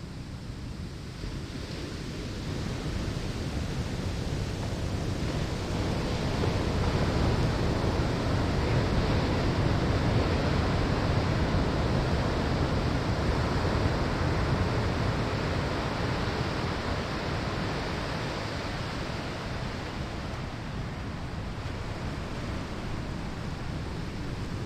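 Ocean waves breaking on a sandy shore: a continuous surf wash that swells over the first several seconds, peaks around ten seconds in, and slowly eases off.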